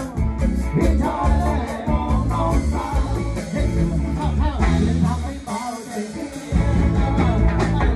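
Live band playing an upbeat song, with a man singing into a microphone over bass and drums. The bass drops away for about a second just past the middle, then the full band comes back in.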